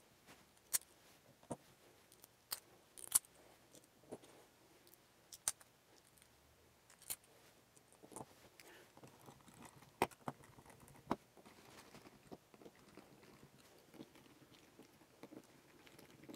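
Faint, scattered clicks and taps of hard plastic parts being handled and pressed into place: green plastic landing-gear feet being fitted onto the arms of a Spedix S250 quadcopter frame.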